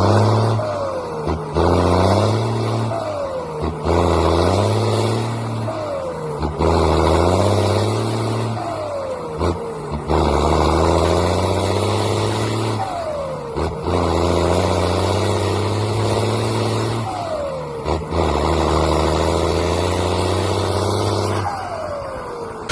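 A heavy turbo-diesel engine pulling under load. Its note breaks off briefly about every two to four seconds and picks up again, each time with a falling whistle.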